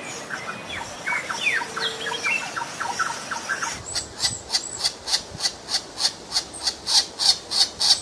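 Birds chirping: a busy run of short, downward-sliding chirps, then from about four seconds in a fast, regular series of high-pitched chirps, about three a second, growing louder.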